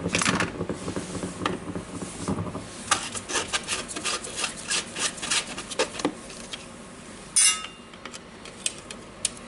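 Hand work on a Makita GA9050 angle grinder's motor housing to get at its carbon brushes: a run of short scraping strokes and light clicks, then a brief louder metallic rattle about seven seconds in.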